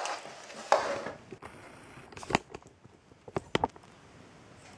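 Handling noises on a wooden floor: a rustle with a sharp knock under a second in, then a few light clicks and taps spread over the next couple of seconds.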